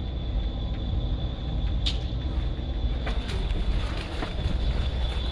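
Airsoft guns firing in scattered single sharp clicks over a steady low rumble of wind on the camera microphone, with a faint steady high whine.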